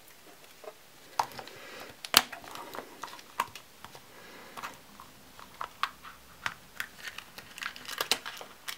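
Black hard-plastic gashapon capsule being prised open by hand: scattered sharp clicks and snaps, the loudest about two seconds in, and a quick cluster near the end as the cellophane-bagged charm inside is pulled out and crinkles.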